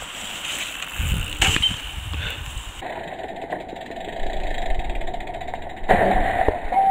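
Downhill mountain bike ridden over dirt jumps: tyres rumbling on dirt with rapid ticking from the rear hub, and sharp knocks around a second and a half in and again near six seconds as the bike hits the ground.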